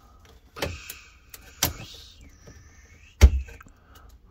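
A few sharp knocks and a brief scrape of handled plastic as a PVC pipe cap is test-fitted onto a pipe end; the loudest knock comes a little past three seconds in.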